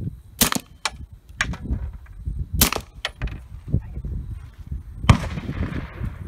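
Semi-automatic pistol firing three shots a couple of seconds apart, the last one followed by a short echo, with fainter sharp cracks in between.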